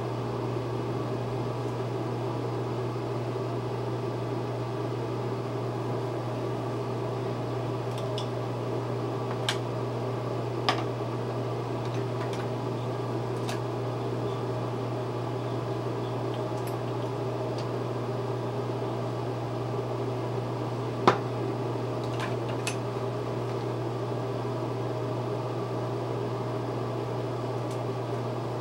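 Steady, even hum of a running fan motor. A few sharp clicks and taps break over it, the loudest about two-thirds of the way through.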